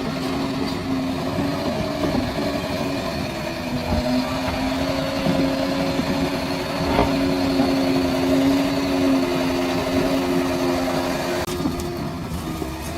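Bulldozer's diesel engine running steadily, its pitch dropping slightly about four seconds in and shifting again near the end, with a few brief knocks.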